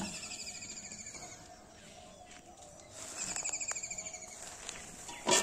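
Two rapid, evenly pulsed high trills from a small wild animal, each a little over a second long, a couple of seconds apart. A sharp metal clank from an aluminium bowl comes at the very end.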